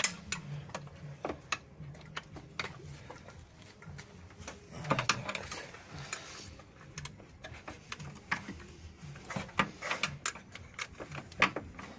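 Irregular metallic clicks and taps of a 13 mm wrench being worked on the belt tensioner pulley bolt, with a short scraping stretch about five seconds in.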